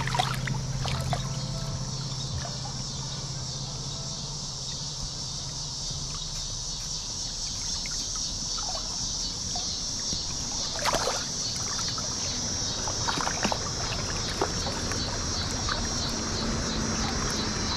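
Steady rush of flowing river water, with a few brief sharper sounds about halfway through.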